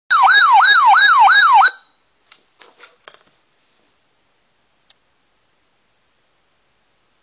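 Radio Shack 12-519 SAME weather radio's alert alarm, set off by a severe thunderstorm warning for its programmed county: a loud warbling tone sweeping up and down about three times a second for a second and a half, then cutting off abruptly. A few faint clicks follow.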